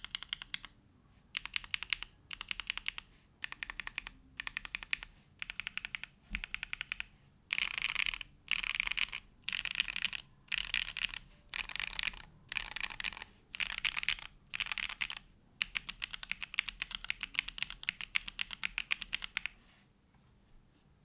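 Typing on a TKD Cycle7 mechanical keyboard with a carbon-fibre plate, case foam, hand-lubed Gateron Box Pink switches and GMK Grand Prix keycaps. Quick runs of keystrokes come in bursts of one to two seconds with short pauses, then a longer unbroken run that stops near the end.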